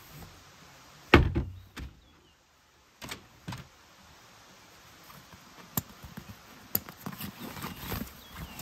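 Camping gear being loaded onto a wooden platform in a car's cargo area. A heavy thump comes about a second in, then a few knocks and two sharp clicks, and near the end the rustle of a fabric carry bag being slid in.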